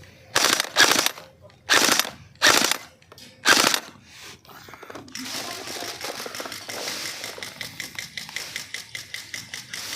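Airsoft electric guns firing on full auto: five short, loud bursts in the first four seconds. Then about five seconds of quieter, continuous rapid fire.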